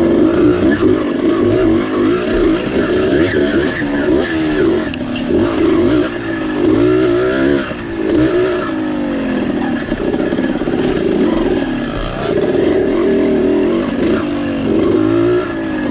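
Trail motorcycle engine running hard, its pitch rising and falling again and again as the throttle is worked.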